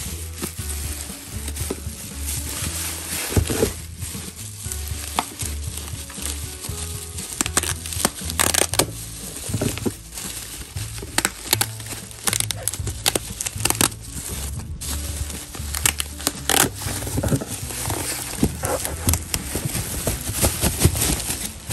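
Plastic bubble wrap being handled and pulled open around a tablet, crinkling and rustling with many irregular sharp crackles, over low background music.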